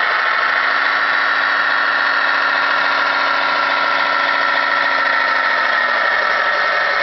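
RC track loader running: a steady mechanical whine with a low hum as it creeps forward, turns and lowers its bucket.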